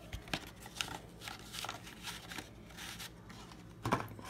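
Trading cards and their cardboard box being handled by hand: scattered soft rustles, slides and light taps, with a louder cluster near the end.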